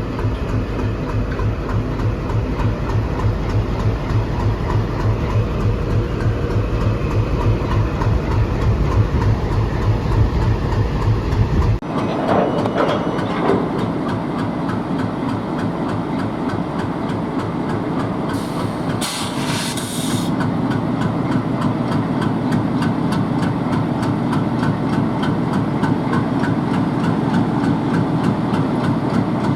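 ALCO WDM 3D diesel locomotive's 16-cylinder ALCO 251 engine idling with a steady low chug. About twelve seconds in the sound changes abruptly to a lighter, busier engine rumble, and a short burst of high hiss comes a little later.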